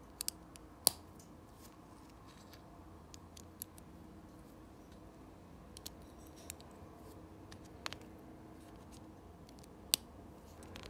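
Plastic Lego bricks handled and snapped together, giving scattered sharp clicks, the loudest about a second in and near the end, over a faint steady hum.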